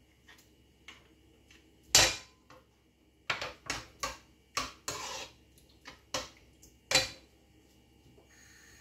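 Metal spoon knocking and scraping against a frying pan and a small dish as cheese is scooped into a cream sauce: a string of about eight sharp clinks, the loudest about two seconds in and near the end.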